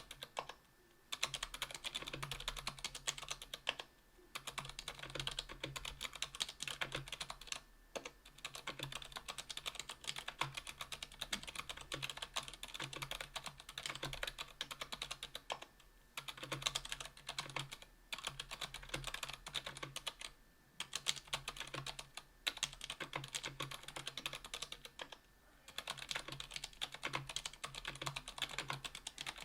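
Continuous typing on a KBDfans Tofu 60% aluminium keyboard fitted with stock Kailh BOX Silent Brown tactile switches (60 g) and GMK keycaps. It is a dense run of keystrokes with a short break every few seconds.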